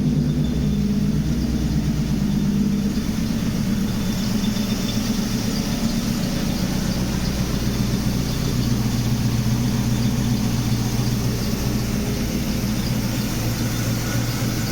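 Mercedes W124's M119 V8 running at idle on temporary, partly mismatched spark plug wires. The engine note drops slightly about four seconds in, then holds steady.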